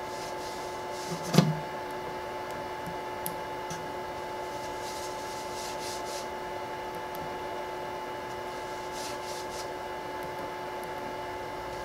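Powered-on QIDI X-MAX 3D printer humming steadily with several constant tones, while a leveling card brushes softly between the nozzle and build plate a few times. One sharp knock comes about a second and a half in.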